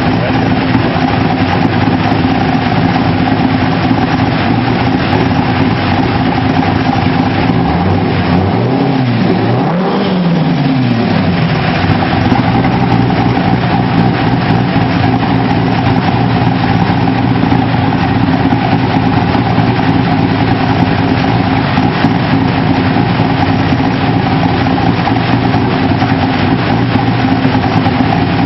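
Factory Five GTM's V8 engine running steadily. About a third of the way in, its pitch dips and then climbs back.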